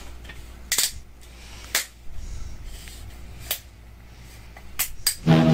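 A few sharp, separate clicks, about a second apart, as a bottle's screw cap is twisted open by hand. Music starts suddenly near the end.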